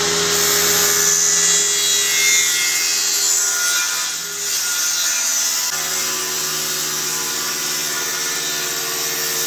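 Power saw cutting wood, running steadily with a constant hiss; its tone shifts about two-thirds of the way through.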